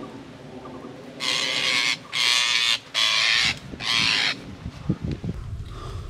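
Rose-ringed parakeet giving four harsh screeches in quick succession, starting about a second in, each lasting about half a second: distress calls of a bird trapped in a net and being handled.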